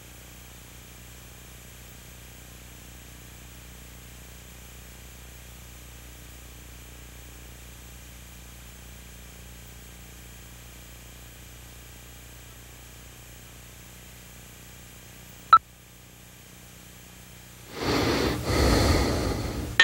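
Steady hum and hiss of an old videotape transfer, with one sharp click about fifteen seconds in. Near the end, a sleeping man snoring, two loud snores in a row.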